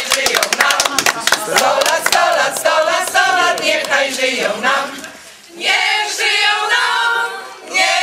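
A group of people singing together, with rhythmic hand clapping over the first couple of seconds. The singing breaks off briefly about halfway through and again near the end.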